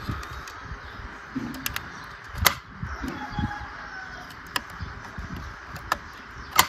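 Handling sounds from a 1:24 diecast Mercedes-Benz W140 model car: a few sharp clicks and soft knocks as fingers and a hobby knife press and tap at its trunk lid, the loudest click near the end.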